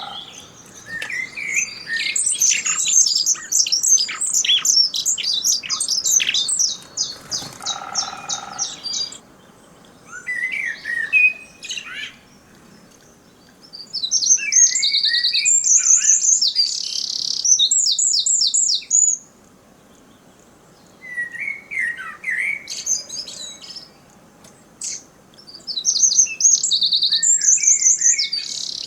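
Wild birds singing close to the microphones in several loud bouts of fast, high chirps and trills, with quieter gaps between. This is a clipped field recording, made when a bird lands right by the mics.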